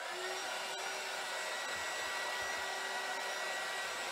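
Handheld craft heat gun (embossing heat tool) switched on and running steadily: a fan blowing hot air with a steady whine, its pitch rising briefly as it spins up. It is drying freshly applied Mod Podge on decoupaged wood.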